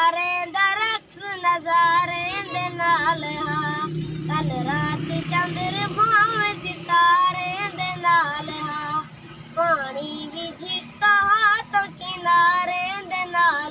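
A boy singing a sad Saraiki song in short phrases of long, wavering, ornamented notes. A low steady hum sits underneath through the first half.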